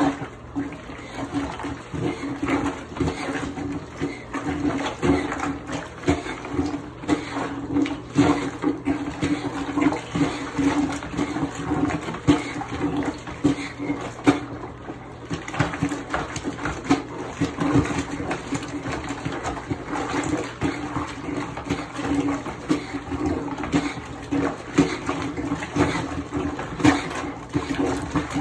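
Lehman's manual washing plunger pumped up and down in a bucket of soapy water and clothes, sloshing and gurgling with each stroke, stroke after stroke in a steady rhythm.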